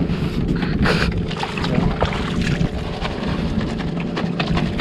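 Wind buffeting the microphone aboard a fishing boat at sea, over a steady low hum and a few scattered knocks.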